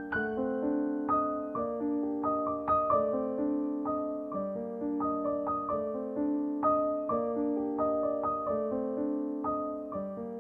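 Background music: a piano playing a gentle, repeating pattern of single notes, each struck and left to fade.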